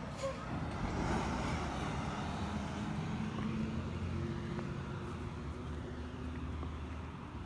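Motor vehicle engine running close by, a low steady hum with road noise, loudest about a second in and easing off toward the end.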